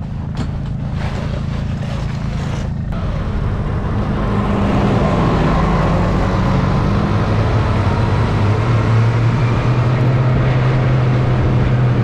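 Snowmobile engine running as the sled gets under way across the snow. Its note climbs as it speeds up and then holds steady, under a rush of wind and track noise.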